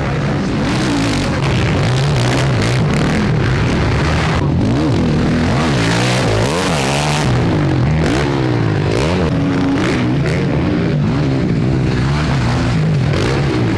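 Several motocross bikes' engines racing on track, overlapping, their pitch rising and falling repeatedly as the riders open and shut the throttle.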